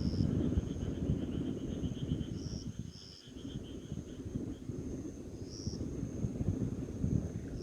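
Night insects calling: one thin, steady, high trill runs throughout, short chirps repeat every second or two, and a quicker pulsing trill fades out about halfway through. Underneath is a loud, uneven low rumble.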